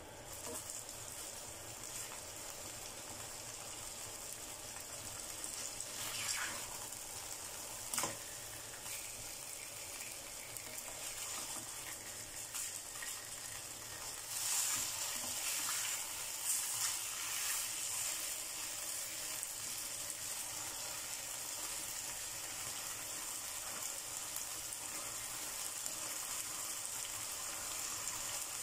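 Beef steaks sizzling in oil and marinade in a nonstick frying pan, with a wooden spatula scraping and turning them. There is a sharp knock about eight seconds in, and the sizzling gets louder and busier about halfway through.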